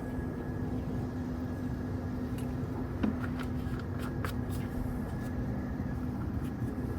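Steady low mechanical hum with a faint steady tone, and a few light clicks and taps between about two and six and a half seconds in.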